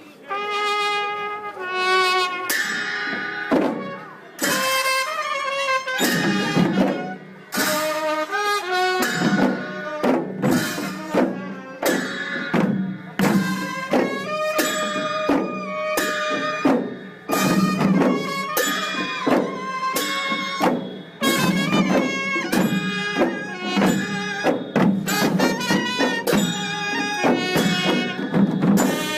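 Newar traditional Gunla music: a wind instrument plays a melody of held notes over drums struck in a steady rhythm.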